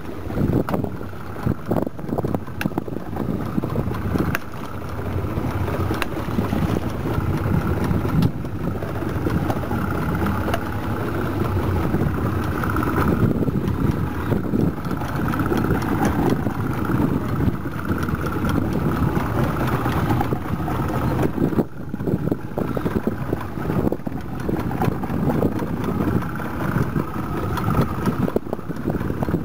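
A boat's engine running steadily at low revs, with wind buffeting the microphone.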